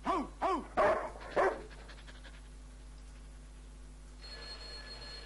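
About four short, quick barks in the first second and a half. About four seconds in, a telephone starts ringing with a steady high tone.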